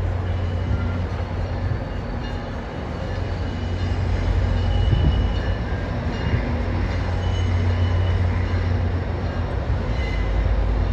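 Steady low rumble of a heavy vehicle running, with faint steady whining tones over it, and wind buffeting the microphone.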